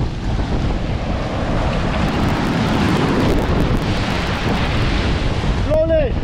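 Strong wind buffeting the microphone over heavy surf, with a wave breaking and washing in the middle, its hiss swelling and then falling back. A brief rising-and-falling call near the end.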